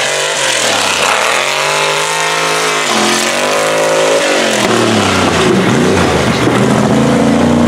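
Mega truck's engine revving hard at full throttle. Its pitch climbs and falls several times: it rises over the first two seconds, jumps higher about three seconds in, drops away soon after and climbs again near the end.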